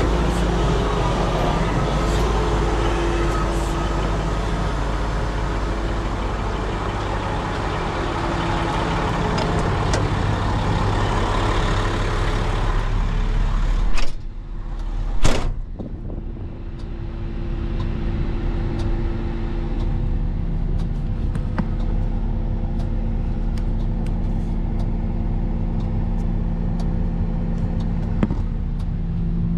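2021 Komatsu HM400-5 articulated haul truck's diesel engine idling steadily. About halfway through come two loud knocks, and then the idle continues more muffled, heard from inside the cab.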